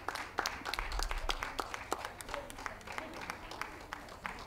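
Audience applauding, a scatter of sharp individual claps that thins out in the second half.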